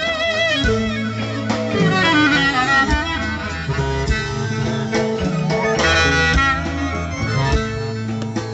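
Greek folk clarinet playing an ornamented solo in the rast mode, its melody wavering and trilling over a steady low accompaniment.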